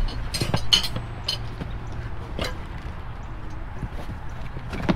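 Hands rummaging through cardboard boxes and junk in a dumpster: cardboard and plastic rustling, with a few sharp clinks and knocks in the first second and a half and another about two and a half seconds in, over a steady low hum.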